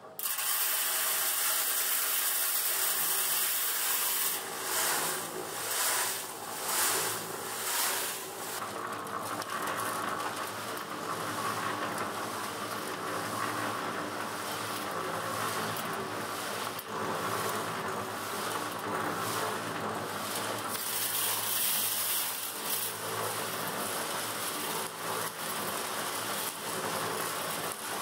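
Small electric drum concrete mixer running with a batch of concrete inside: the motor hums under the hissing, pattering churn of gravel and sand tumbling in the turning drum. The noise swells several times about four to eight seconds in, then settles into a steady churn.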